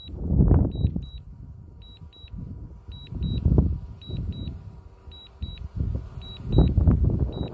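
A DJI drone's auto-landing warning gives short high double beeps about once a second while the drone descends. Louder low gusts of wind buffet the microphone, swelling about half a second in, around three and a half seconds in, and most strongly near the end.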